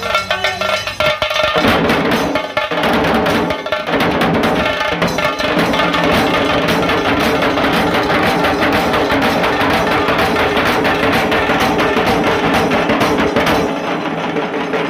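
Dhol tasa drumming: an ensemble of dhol barrel drums and stick-beaten tasa drums playing a fast, dense rhythm that fills out and gets louder about a second and a half in.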